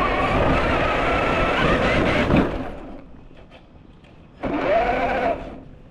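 Electric motor and gear drivetrain of a Traxxas TRX-4 1/10-scale RC crawler whining under throttle. The whine rises in pitch and cuts off about two and a half seconds in. A second short burst of throttle about four and a half seconds in rises and falls again.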